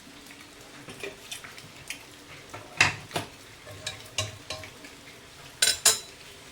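Metal spatula clinking and scraping against a cooking pan while stirring, about ten separate knocks, the loudest a little under three seconds in and a close pair near the end.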